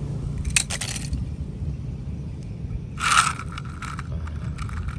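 Crunching and scraping handling noises, as a die-cast toy truck is handled on a concrete curb beside grass. There are a few clicks early on, a short loud crunch about three seconds in and a run of rustling crunches near the end, all over a steady low rumble.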